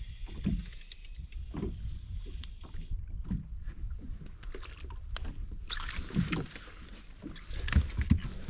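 Plastic pedal kayak on the water: irregular dull knocks and water slaps against the hull over a low rumble of wind on the microphone. A steady rushing hiss of water joins in about two-thirds of the way through.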